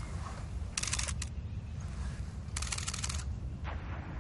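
Single-lens reflex camera shutter firing in quick motor-drive bursts, each a fraction of a second of rapid clicks: once about a second in and again near three seconds, with a shorter burst just after. A low steady rumble lies underneath.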